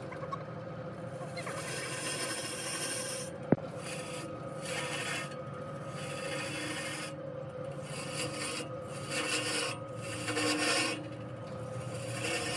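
A hand-held turning tool shaving the surface of a large log spinning on a lathe: a continuous rasping scrape that comes in passes about a second long with short breaks, over a steady hum. One sharp click about three and a half seconds in.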